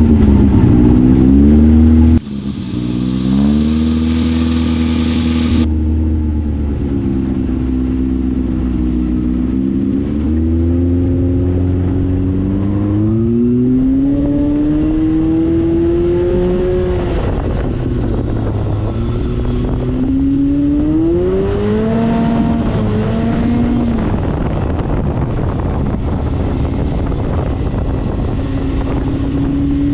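Polaris RZR side-by-side engine running under way, its pitch rising and falling again and again as the throttle opens and closes. About two seconds in the level drops sharply and the sound changes.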